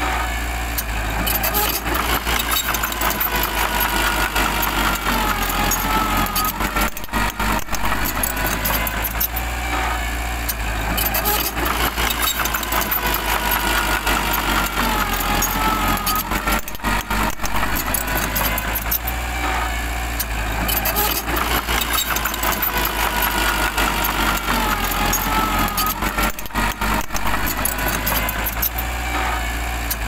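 Mini crawler bulldozer's diesel engine running under load as it pushes soil. The sound is steady, with a wavering whine that rises and falls in a cycle repeating about every ten seconds.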